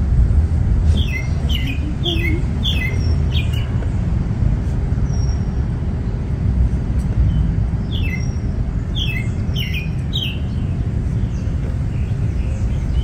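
A songbird calling in two runs of about five quick downward-sliding chirps, over a steady low rumble.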